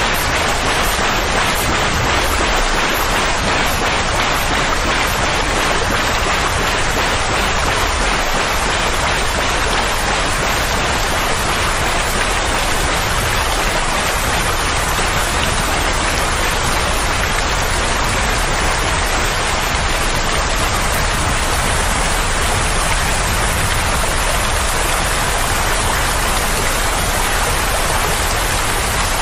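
Steady, unbroken rain-like hiss of soothing noise for a colicky baby.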